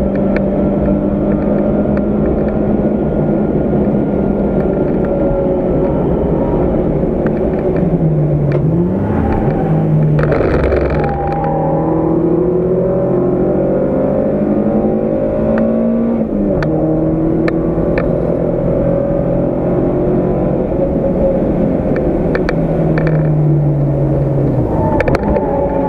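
Volkswagen Golf MkII GTI 16v's four-cylinder engine at speed on a race track, heard from inside the cabin. The engine note holds steady, falls about eight seconds in, then climbs in one long rise and drops sharply at a gear change around sixteen seconds. It rises and drops once more near the end.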